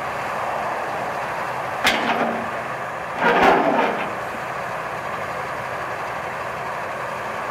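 Case CX350C excavator's diesel engine running steadily as the boom and bucket move, with a sharp clank about two seconds in and a louder, harsher burst lasting under a second around three and a half seconds in, as the bucket comes down to the ground.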